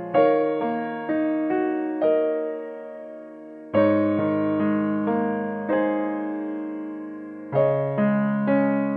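Background music: a gentle piano melody over chords, each note struck and fading away, with a new phrase starting about every four seconds.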